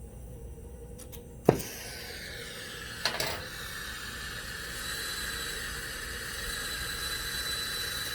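Air-acetylene turbo torch being lit: a sharp pop about a second and a half in as the flame catches, then the torch flame burning with a steady rushing hiss and a faint high whistle, growing slightly louder. A second short burst comes about three seconds in.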